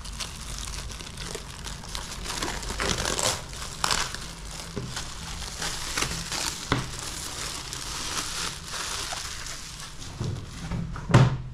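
Thin clear plastic wrapping being torn open and crumpled by hand, a continuous crinkling full of sharp crackles. A single louder knock comes near the end.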